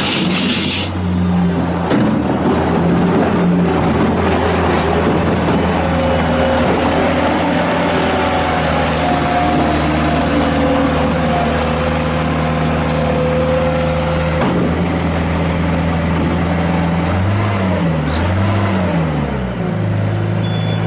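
New Holland LS170 skid steer's 52 hp diesel engine running steadily with a whine from the hydraulics. Near the end the engine speed sags and picks up again twice, as the throttle, held only by a loose friction disc, fails to stay open.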